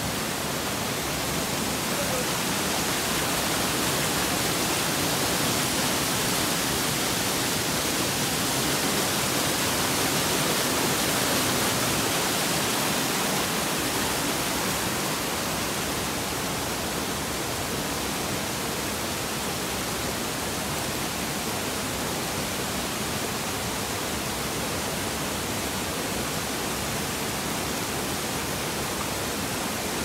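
Small mountain-stream waterfall cascading over rocks: a steady rushing of falling water, a little louder for the first half.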